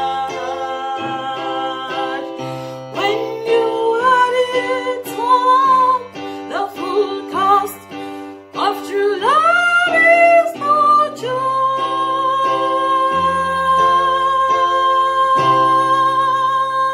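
A woman singing solo over an instrumental backing of plucked-string and keyboard chords. She sings a moving melodic phrase, then holds one long final note for about the last six seconds, which stops abruptly at the end.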